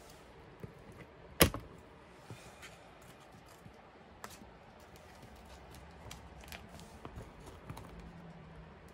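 Clear plastic photocard binder pages being handled and turned over the metal rings: scattered small clicks and soft plastic rustling, with one sharp click about a second and a half in.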